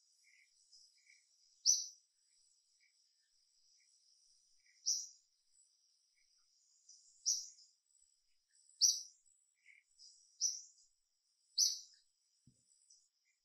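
Birds chirping: about six short, sharp, high-pitched chirps at irregular intervals, with fainter chirps between them. A faint steady high-pitched tone runs underneath.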